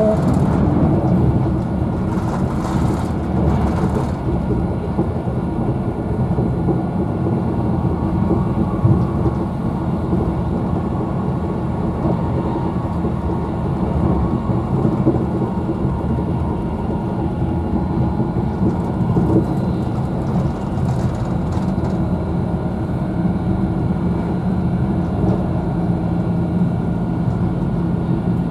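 Steady low rumble inside the carriage of a Virgin Trains Class 390 Pendolino electric train running at speed: wheels on the rails and running noise.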